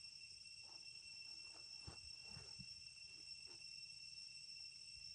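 Steady high-pitched insect drone from crickets or similar insects, held at several even pitches, with a few faint rustles and soft knocks about two seconds in.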